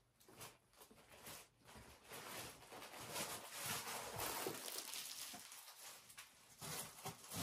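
Soft rustling and handling noises as a fabric kitchen rug is folded and set aside, with a few faint clicks.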